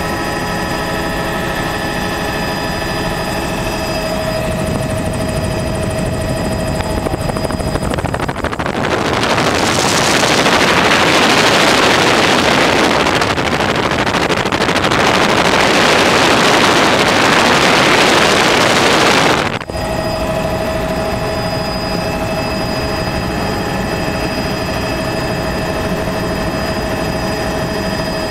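Helicopter in flight heard from inside the cabin: a steady engine whine over a low rotor rumble. From about 8 s in, a louder, even rushing noise covers it for some eleven seconds and cuts off suddenly, leaving the steady whine again.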